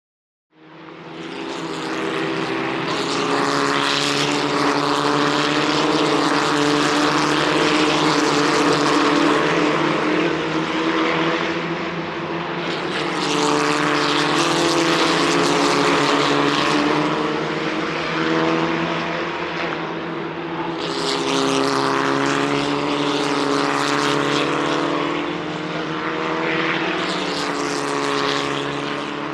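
Racing car engines running steadily, a droning note that holds a near-constant pitch and wavers only slightly, with swells of louder noise every few seconds. It comes in abruptly about half a second in.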